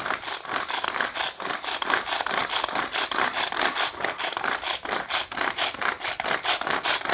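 Belscoop hand-held pull-cord chopper worked by repeated pulls of its string: the blades spin inside the plastic bowl, chopping garlic and shallots, in a fast, even rhythm of rasping strokes.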